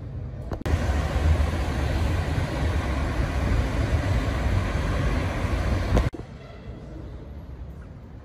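City street traffic: cars driving past, with a steady low rumble. It starts abruptly a little under a second in and cuts off about six seconds in.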